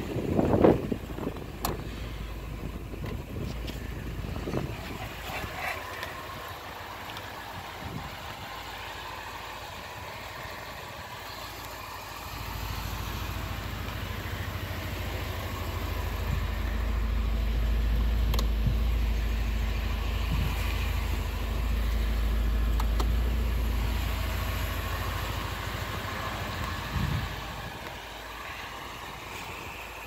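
A car engine idling: a low, steady rumble that grows louder through the middle and drops back near the end, with a few knocks in the first second.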